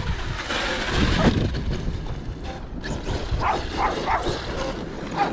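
Rushing noise of a running RC monster truck, then a dog barking in short yelps several times from a little past halfway.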